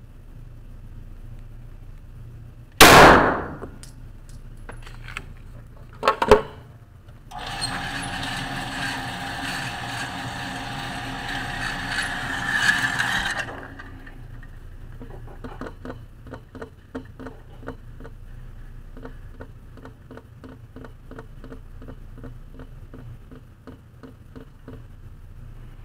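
A single Smith & Wesson pistol shot about three seconds in, echoing in the indoor range, and another sharp report a few seconds later. Then the target carrier's motor runs for about six seconds, bringing the paper target back up the lane, followed by a long run of light, even clicking, about two or three a second.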